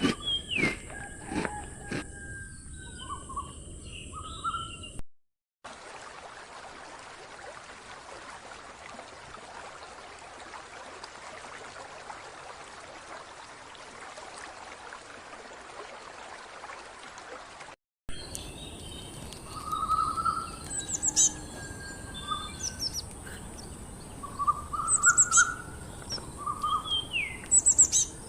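Birds calling in short chirps and quick falling whistles over a steady high hiss. About five seconds in they break off, and for about twelve seconds there is only an even rushing noise. After that the calls start again.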